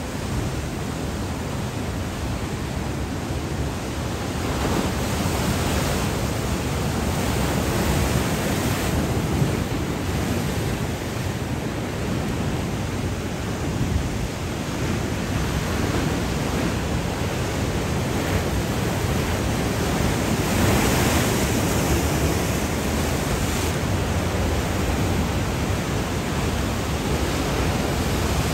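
Ocean surf washing, a steady rushing noise that swells a little every several seconds.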